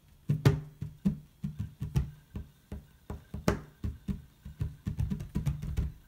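Music playing from the laptop's speakers: short, sharp notes in quick succession over a steady low note.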